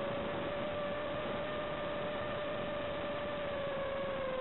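Racing quadcopter's motors and propellers whining steadily over a constant hiss, the pitch sagging slightly near the end.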